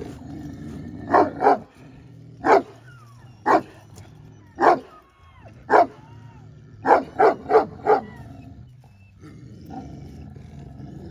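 Kangal-type livestock guardian dog barking: about ten sharp barks, first singly and then in a quick run of four, stopping about eight seconds in.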